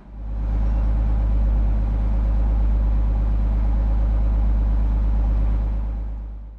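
Barge's inboard engine running steadily at idle, a deep even hum, run to charge the batteries. It fades out near the end.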